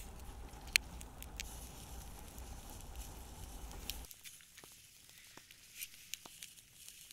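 Split-wood kindling fire catching and crackling: scattered sharp pops and snaps, the loudest about a second in. A low rumble underneath stops abruptly about four seconds in.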